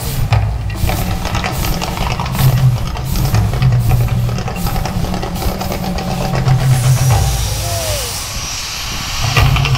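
Artificial volcano show: a loud, pulsing deep rumble from the show's sound system over the flame jets, and about seven seconds in a rushing hiss as the main fireball erupts.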